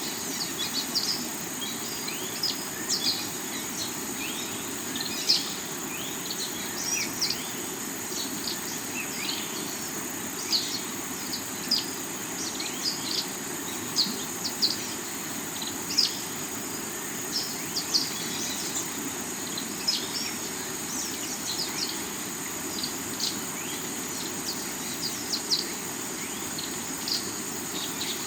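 Rocky river flowing steadily, under a constant high insect drone and many short, quick bird chirps.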